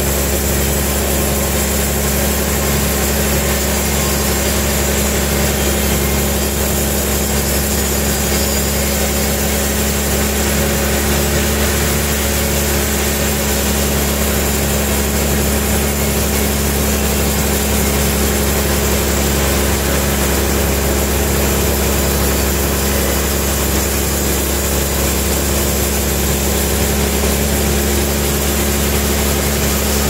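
Large vertical band sawmill running steadily, with a low hum and a regular pulsing throb.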